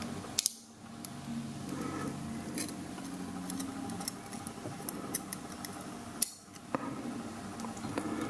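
Small scattered metallic clicks and scrapes of steel tweezers working driver pins out of a lock's pin chambers, over a faint steady hum.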